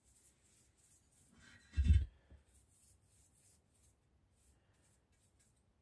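Paintbrush brushing liquid rust converter onto a motorcycle wheel rim: soft, scratchy repeated strokes, with one dull thump about two seconds in.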